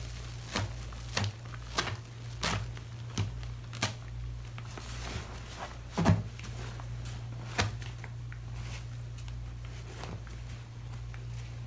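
Gloved hands working sponges in a basin of foamy cleaning solution make a series of wet squelches and pats. They come about every two-thirds of a second for the first four seconds, the loudest about six seconds in, then fewer. A low steady hum lies underneath.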